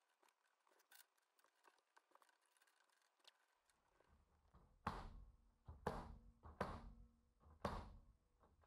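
Nail gun firing four times, about once a second, as brad nails are driven into the wooden lattice strips of a trellis panel, after a few seconds of near silence with faint ticks.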